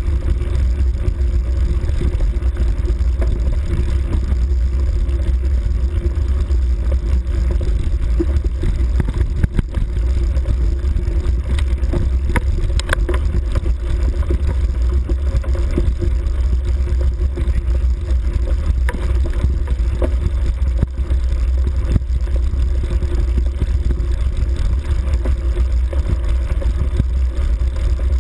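Steady low rumble of a vehicle riding along a bumpy forest dirt track, with scattered knocks and rattles from the bumps.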